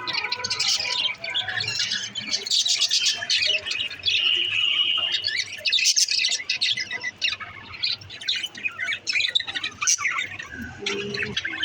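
Pet budgerigars chattering with rapid chirps and squawks, with one held whistled note about four seconds in.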